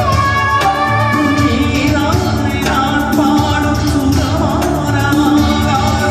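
A Tamil film-song duet performed live: a woman and a man singing into microphones over a small band led by an electronic keyboard, with a steady beat.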